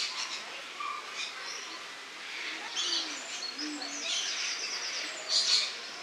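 Rainbow lorikeets chattering and screeching in harsh, high bursts, loudest about five and a half seconds in.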